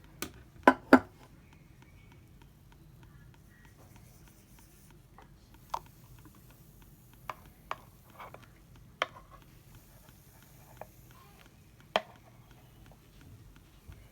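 Sparse clinks and taps of kitchen crockery and utensils being handled: two sharp knocks about a second in, then single light taps every few seconds.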